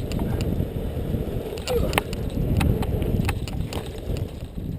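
BMX bike ridden on a dirt track, heard from a helmet-mounted camera: steady low wind rumble on the microphone with tyre noise, and a scattering of sharp clicks and knocks from the bike.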